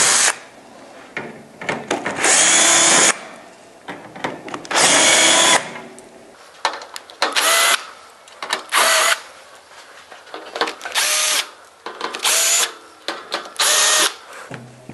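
Cordless drill with a T25 Torx bit backing screws out of a dehumidifier's sheet-metal front grill in a series of separate short runs, about eight. The later runs are briefer, with faint clicks and handling between them.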